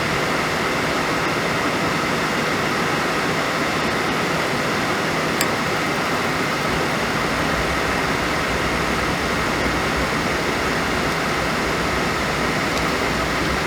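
Suburban RV furnace running steadily, its blower fan pushing a constant rush of air with a faint steady whine, a sign that the furnace is working again after its control board was replaced.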